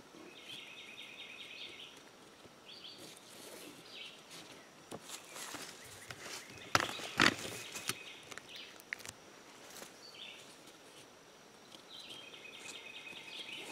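Paracord and canvas rustling as the rope is pulled through the cot's webbing loops, with a few louder sudden scrapes and rustles about seven seconds in. A high repeated trill sounds in the background near the start and again near the end.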